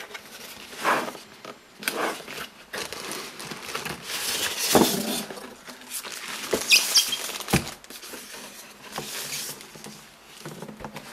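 Unboxing handling sounds: crinkling plastic wrap and scraping cardboard as a rack-mount patchbay in foam end blocks is lifted out of its box, with a few sharp knocks.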